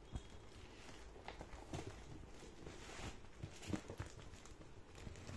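Faint, irregular knocks, taps and rustles of hands handling and shifting a large cardboard parcel wrapped in plastic packing tape on a hard floor.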